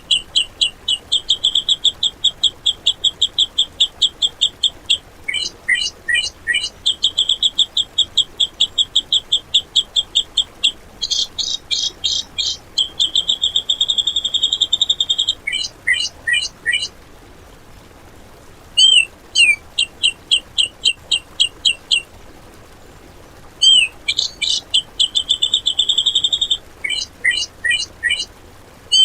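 Grey-cheeked bulbul (cucak jenggot) song: rapid, harsh, repeated chattering notes of the 'tembakan' kind, several a second, in runs of a few seconds broken by short pauses.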